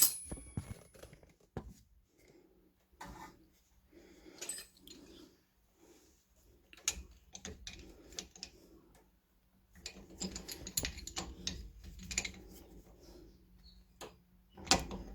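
Irregular small metallic clicks, clinks and knocks from hand tools and brake parts being handled while a rear brake caliper is worked on, busiest about two-thirds of the way through.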